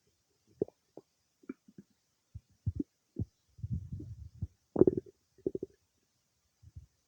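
Human stomach gurgling while digesting cake: a string of short, irregular gurgles, with a longer low rumble around the middle and the loudest gurgle just after it.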